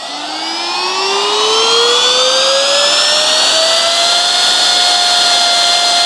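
Baseus A2 handheld car vacuum cleaner running: its motor whine rises in pitch over the first four seconds or so as it spins up, then holds steady over a rush of air. Really loud for its size.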